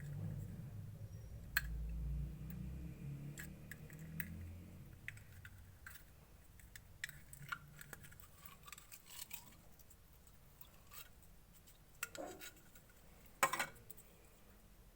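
Clear slime being worked by hand, giving scattered small clicks and crackling pops, with a low rumble of handling over the first few seconds and two sharper clicks near the end.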